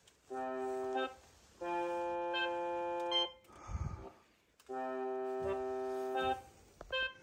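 Background music: three sustained keyboard chords with an organ-like tone, each held for one to two seconds with short gaps between them. There is a brief low bump a little before the middle.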